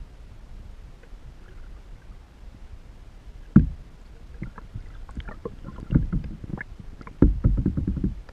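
Water movement heard through an underwater camera beneath a kayak: a low, muffled rumble with scattered clicks and several dull knocks, the strongest about three and a half seconds in, around six seconds, and in a cluster near the end.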